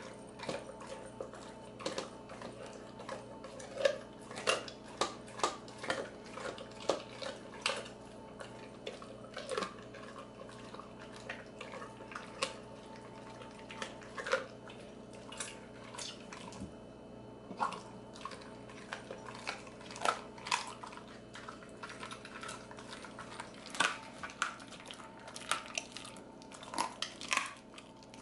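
An XL American Bully eating raw ground meat from a stainless steel bowl: wet licking and chewing, with irregular sharp clinks of tongue and teeth against the metal bowl, one or two a second. There is a brief lull a little past halfway.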